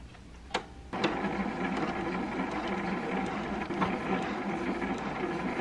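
Juki HZL-F300 sewing machine stitching through scrap fabric on its slow speed setting. It starts about a second in, after a short click, and then runs steadily.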